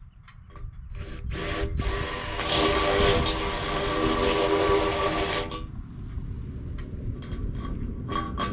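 Power drill with a step bit boring through an aluminum awning pole: a short burst about a second in, then the motor's steady whine and the bit cutting the metal for about four seconds, stopping suddenly. A brief second burst of drilling near the end.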